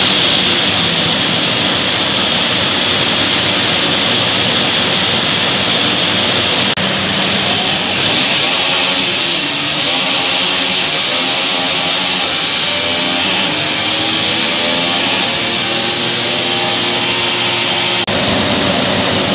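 Runner sport motorcycle engine running on a roller test bench during an engine test, a loud steady roar with the engine note wavering up and down for a while in the middle.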